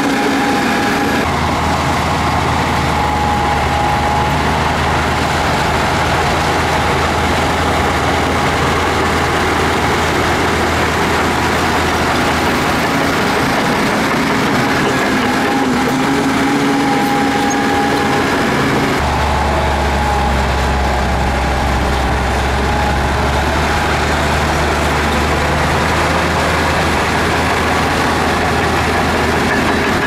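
Crawler bulldozer's diesel engine running steadily under work, a heavy low drone with a steady tone above it. The engine note shifts abruptly about a second in and again about two-thirds of the way through.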